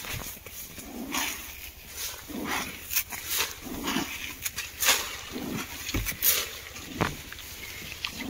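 Footsteps swishing through tall grass and weeds, the stems brushing and rustling against the legs with each step, repeated irregularly about once or twice a second.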